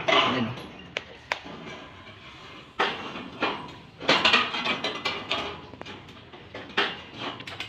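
Intermittent metallic clanks and rattles of steel pipe trusses and a hand chain block being worked during hoisting. There are two sharp clicks about a second in, then louder clattering knocks around three and four seconds in and again near the end.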